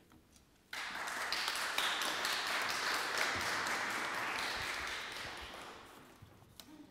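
Audience applauding. It starts suddenly about a second in, holds steady for about four seconds, then dies away near the end.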